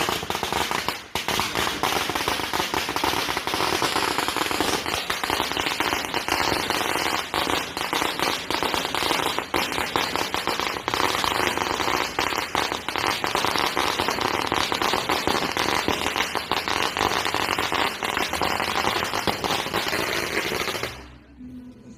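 A long string of firecrackers going off in rapid, unbroken popping that stops abruptly near the end.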